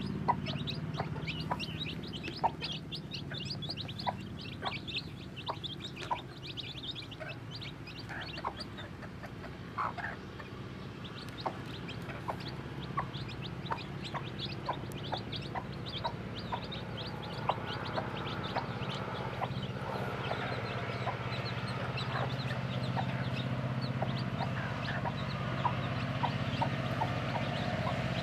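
A hen clucking while her chicks peep and peck at feed in a feeder tray: rapid high peeps, thickest in the first few seconds, over scattered short ticks.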